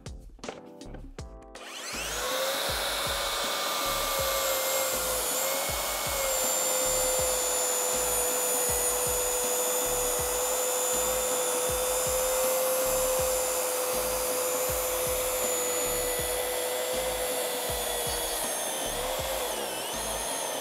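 Makita 36V brushless cordless track saw spinning up about two seconds in, then running steadily with a high whine as it rips through laminated plywood along its guide rail. Near the end the whine dips and wavers as the cut finishes.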